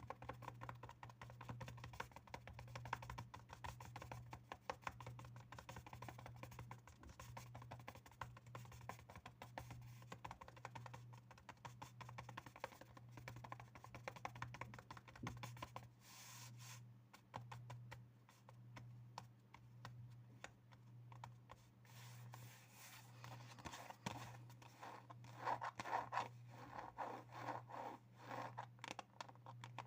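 Rapid, light tapping and scratching on assorted objects, a dense run of small clicks, with a stretch of louder taps a few seconds before the end. A steady low hum runs underneath.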